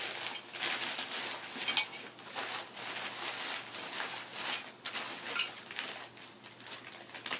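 Packaging and scooter parts being handled: rustling of wrapping, with a few sharp metallic clinks, the loudest about two seconds in and about five and a half seconds in.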